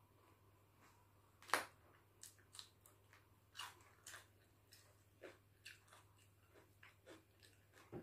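Close mouth sounds of someone chewing raw green vegetables and sticky rice: one loud crunchy bite about a second and a half in, then a run of softer, irregular chewing clicks.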